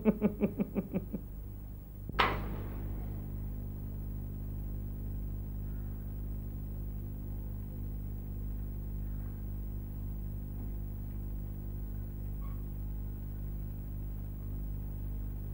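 A steady low electrical hum. It opens with a short laugh fading away in quick pulses, and a single sharp knock comes about two seconds in.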